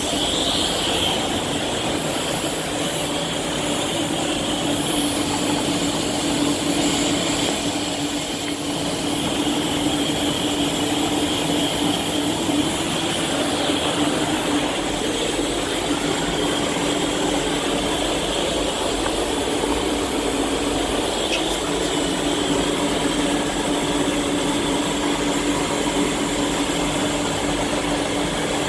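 Compressed-air hiss of an Iwata Hakone spray gun laying on a second coat of clear, over the steady rushing and hum of the spray booth's air flow.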